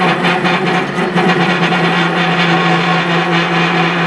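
Metal lathe running with a steady hum from its motor and drive, its tool bit cutting the end of a spinning metal shaft.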